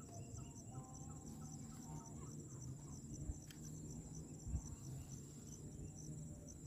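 Insects trilling steadily in a high, even tone, over a low rumble. A couple of soft knocks come near the middle, as gear is handled.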